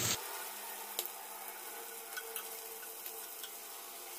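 Chicken pieces shallow-frying in a little oil in a pan, a soft steady sizzle, with a few light clicks of metal tongs against the pan as the pieces are turned over.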